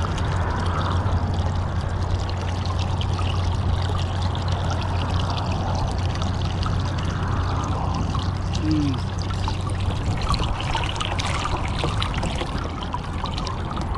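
Water pouring out of a flooded kayak in a steady, unbroken stream.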